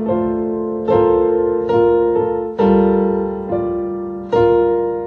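Background music of slow, soft piano chords. A new chord is struck about once a second and left to ring and fade before the next.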